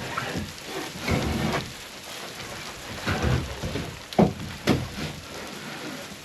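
Wooden 2x6 boards being handled and set down, a series of knocks and clatters, the loudest two sharp knocks about half a second apart a little after four seconds in.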